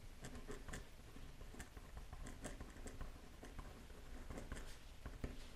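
Pen writing on a lined paper pad: short, irregular scratchy strokes of the pen tip on the paper.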